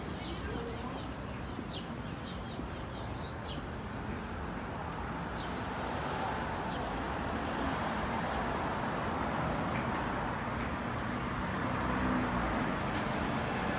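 City street traffic noise, swelling from about halfway through as vehicles pass, with small birds chirping in the first few seconds.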